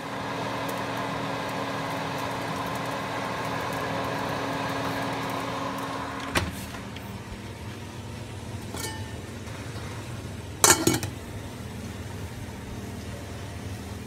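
Steady mechanical hum of a kitchen appliance motor, cut off by a click about six seconds in. A quieter hiss follows, broken by a short, sharp clatter a few seconds before the end.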